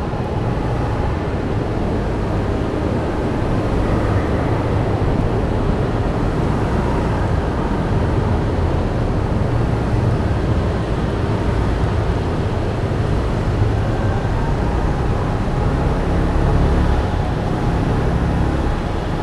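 Steady low rumble of vehicle traffic and running engines, with no single event standing out.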